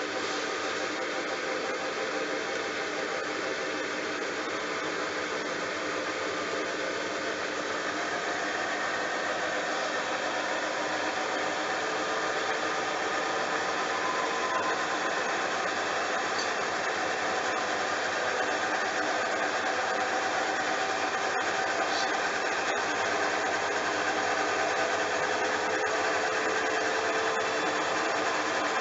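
Bosch washing machine running a load of towels: a steady whir, with a motor whine that climbs slowly in pitch and grows a little louder from about a third of the way in as the drum speeds up.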